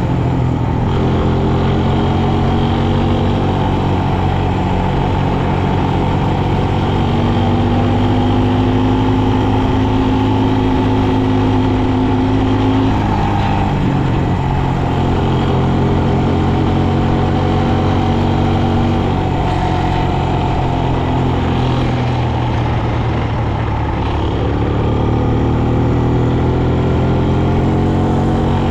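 Quad bike (ATV) engine running under load, heard from on board. It runs steadily, its pitch dipping and climbing again a few times as the throttle changes.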